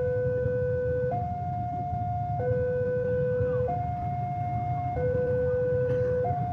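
Railway level-crossing warning alarm sounding its two-tone electronic chime, a lower and a higher note alternating about every 1.3 seconds, over a low steady rumble.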